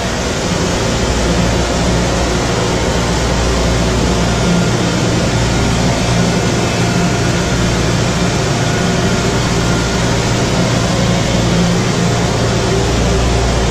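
Ship's engine-room machinery noise: a loud, steady drone and low hum from running diesel engines, pumps and fans aboard a large bulk carrier.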